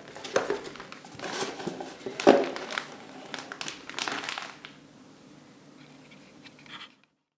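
Plastic film wrapping crinkling and a cardboard burger box being handled, with one sharp knock about two seconds in. The handling stops a little over four seconds in, leaving faint room tone, and the sound cuts out completely near the end.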